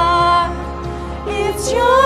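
Live worship music: a singer's held note fades about half a second in, the band accompaniment carries on more softly, and the voice comes back in on a new note near the end.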